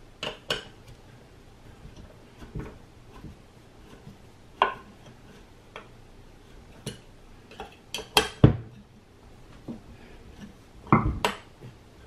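Sharp metal clinks and taps of a hex key turning the screws of a hub motor's cover plate as it is refitted. The taps are scattered, with the loudest coming in quick clusters about eight and eleven seconds in.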